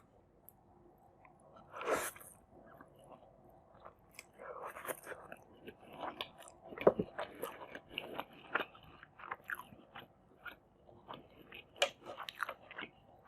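Close-miked eating of Maggi masala noodles with egg, tomato and cucumber: chewing and biting with crisp crunches. There is one louder noisy burst about two seconds in, and from about four seconds in the bites and chews come thick and fast.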